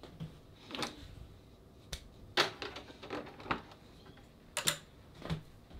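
Sharp clicks and knocks of a hand unplugging an ifi iDefender 3.0 USB ground loop isolator dongle from a computer's USB port: about seven of them scattered over a few seconds, the loudest about halfway through.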